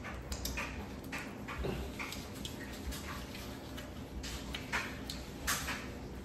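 Close-miked eating sounds from a seafood boil: an irregular run of short wet clicks and crackles of chewing and handling food.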